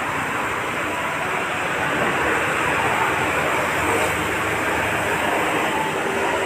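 Electric heat gun blowing a steady hiss of hot air, used to heat-shrink window tint film onto a car's glass.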